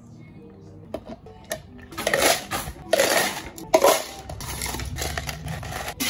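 Ice cubes scooped and tipped into plastic cups, clattering in several loud rushes from about two seconds in, then rattling more softly as the cups settle full of ice. Faint background music underneath.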